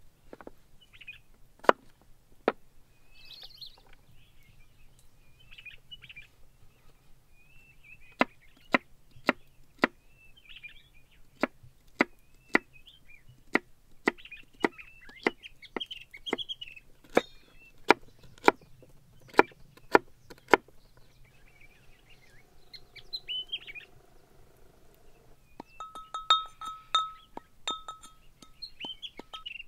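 Large kitchen knife chopping vegetables on a wooden cutting board in sharp single strokes, about one every half second to second, with small birds chirping throughout. Near the end a brass mortar is struck with its pestle and rings.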